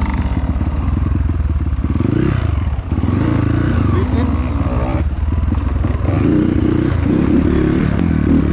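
Off-road motorcycle engine running steadily under load while riding, with some clatter.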